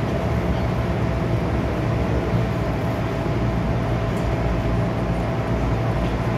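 MTR M-Train electric multiple unit running, heard from inside the car by the door: a steady rumble of wheels and motors with a thin whine held at one pitch.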